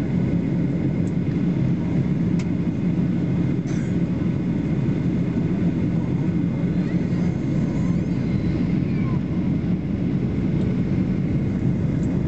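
Steady low drone of an airliner's engines and airflow heard inside the passenger cabin in flight, with a couple of faint clicks in the first few seconds.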